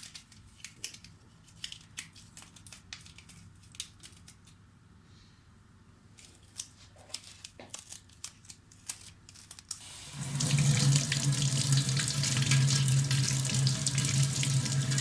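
Faint scattered clicks and light scraping of parts being handled, then about ten seconds in a kitchen tap is turned on and water runs steadily into the sink with a low steady hum under the hiss.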